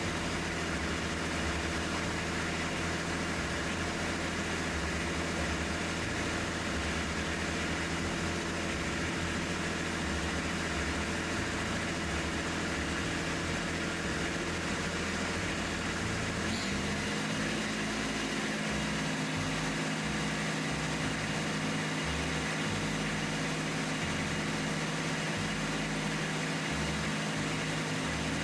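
Kubota B2601 tractor's three-cylinder diesel engine running steadily, its speed stepped up about two-thirds of the way through and held. It is being run at different throttle settings to check for fuel leaks after the fuel system was bled.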